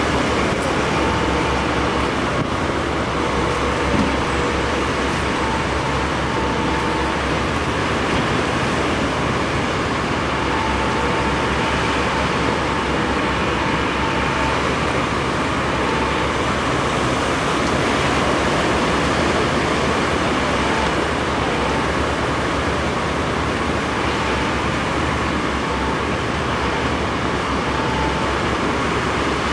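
Diesel engines of a Hitachi tracked excavator and an articulated dump truck running steadily, blended with the wash of surf, with a faint tone that comes and goes.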